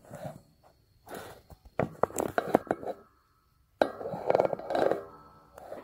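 Metal parts and a hand tool clinking and knocking against a supercharger snout on a shop press: a run of sharp clinks about two seconds in, then a longer clatter about four seconds in.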